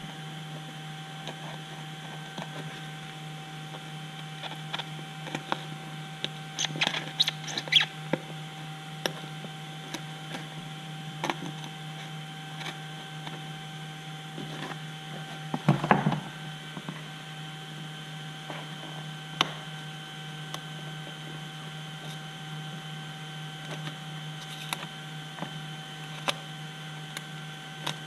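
Hobby knife cutting and scraping out EPP foam in short, scratchy strokes, with a cluster of scrapes about seven seconds in and a louder scrape at about sixteen seconds, over a steady electrical hum.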